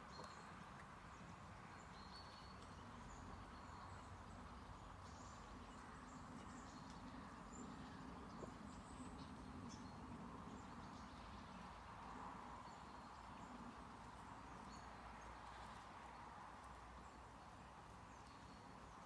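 Near silence: faint outdoor ambience with a steady low hum and a few faint, short, high bird chirps.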